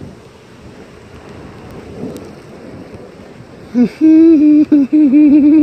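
Steady noise of rain and wind in a thunderstorm. About four seconds in, a man lets out a loud, drawn-out "woo" yell, held on one pitch with a slight waver until the end.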